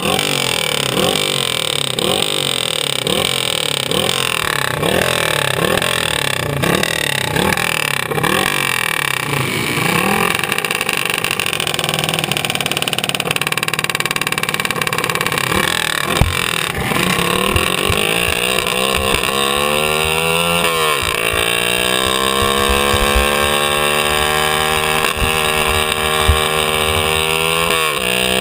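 Go-kart engine at close range, blipped over and over in short revs while the kart waits on the grid. It then pulls away and accelerates, its pitch climbing steadily, with a sharp drop when the throttle is lifted, about two-thirds of the way through, before climbing again. There are scattered knocks from the chassis.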